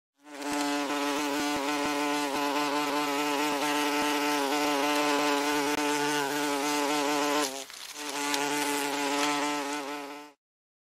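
Wasp buzzing: a steady, pitched hum of beating wings that dips briefly about seven and a half seconds in, then resumes and cuts off abruptly near the end.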